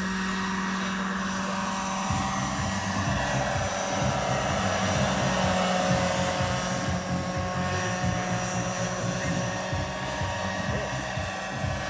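Radio-controlled scale model of a BK 117 helicopter in flight: a steady humming whine from its drive and rotors, with a fluttering low rotor beat that sets in about two seconds in.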